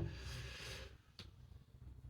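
Quiet room tone with faint handling noise and one soft click about a second in.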